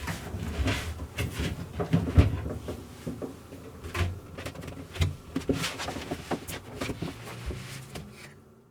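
Irregular knocking, tapping and clattering of wooden cabinet panels being handled in a small enclosed cabin, with the loudest thump a little over two seconds in.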